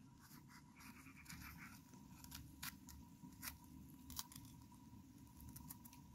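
A small knife cutting into a green bell pepper held in the hand: faint, scattered crisp clicks and cuts as the blade works round the stem and core.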